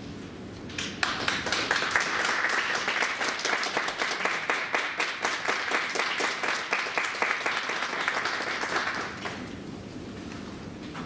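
Small audience applauding, starting about a second in and dying away after about eight seconds.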